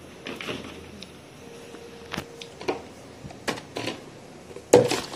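Plastic food containers being packed into a cloth bag: scattered light knocks, clicks and rustles, with the loudest clatter near the end.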